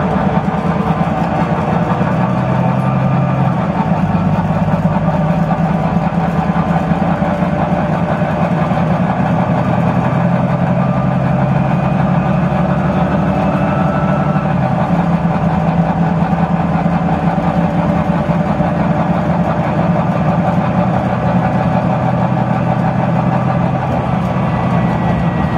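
Volvo B9TL double-decker bus's six-cylinder diesel engine running loud and steady as the bus drives off, heard inside the passenger saloon. The engine note shifts in pitch a few seconds in and again about halfway through.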